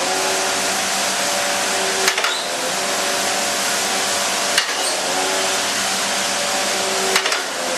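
Mattison hydraulic surface grinder running: a steady hum and hiss from the spindle and hydraulic drive, with a short knock about every two and a half seconds as the hydraulic table reverses at the end of its stroke.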